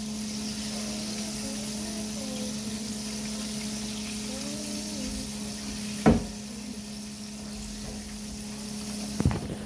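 Steady hiss from a steaming pot on an electric stove, over a steady hum. A sharp knock comes about six seconds in and a short cluster of knocks near the end, while a metal spoon stirs the pot.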